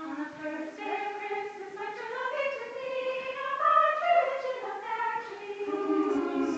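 Choir of girls and young women singing unaccompanied, all coming in together at once at the start, with long held notes and a melody that climbs and falls back.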